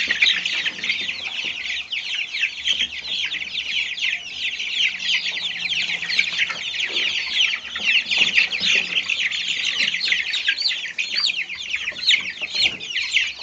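A brood of young Silkie chicks, about three weeks old, peeping all together: a dense, continuous chorus of many overlapping high, falling peeps.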